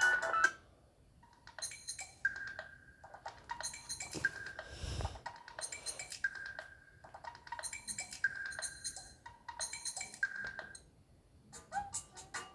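Mobile phone ringtone from a Samsung GT-C3593: a short run of clicky high notes followed by a held beep, repeating about every two seconds, five times.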